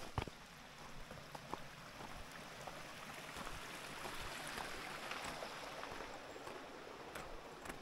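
A small mountain stream trickling faintly among snow-covered rocks, growing louder in the middle and easing off again, with a few light footsteps on snow.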